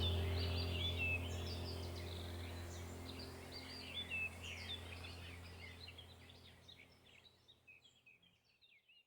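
Birds chirping over a steady low hum, as in a background nature-sounds track. The whole fades out to silence about seven seconds in.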